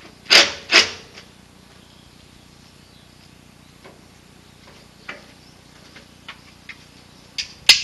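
Sharp knocks and clicks from hand work on an aluminium carport frame: two loud knocks about half a second apart just after the start, scattered light ticks, then two more knocks near the end.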